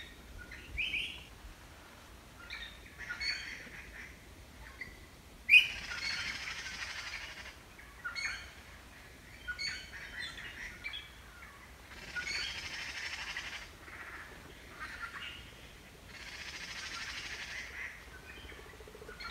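Birds calling: scattered short, high chirps and three longer, harsh chattering calls, each about a second and a half long, the first starting sharply and loudest.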